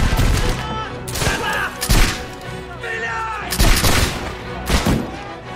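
Musket fire: five loud shots at uneven spacing over a few seconds, some with a heavy low boom, with film music and shouting voices underneath.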